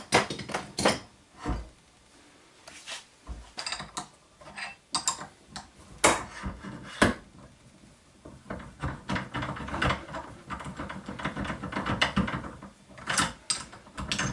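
Steel barrel vise and action wrench being handled and taken apart: a string of separate metal clanks and clicks. In the second half comes a busier stretch of rattling and scraping as the old metal action wrench slides on the action.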